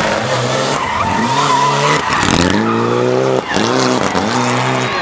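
Rally car sliding through a tight turn, its engine revving hard in rising pulls broken by a short drop at a gear change about three and a half seconds in, with tyres squealing as it slides.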